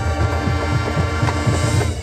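High school marching band holding a sustained chord over low drum hits about four a second, cutting off sharply near the end.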